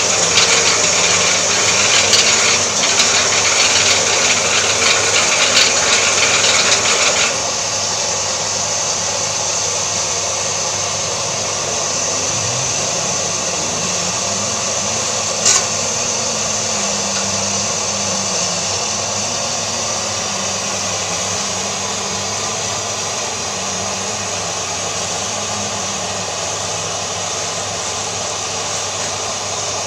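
Portable plastic shredding machine's electric motor running, grinding plastic sacking as it is pushed in with a metal bar. The grinding stops after about seven seconds and the machine runs on more quietly with a low hum; one sharp click about halfway.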